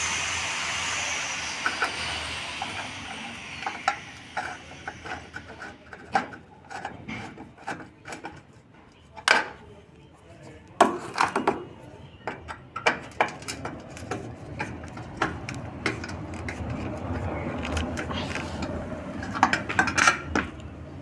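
Irregular metal clicks, taps and scrapes as a nut is fitted onto a bolt through a door hinge on a thin aluminium frame, with a hiss fading away over the first few seconds.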